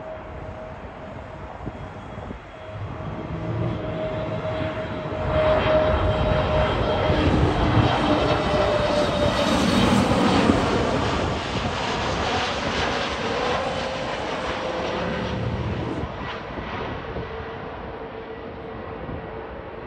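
Aer Lingus Airbus A320neo with CFM LEAP-1A turbofans passing low on final approach, landing gear down. The jet noise swells from about three seconds in and is loudest in the middle as it passes close by. It then fades, and a steady engine whine drops slightly in pitch as the plane moves away.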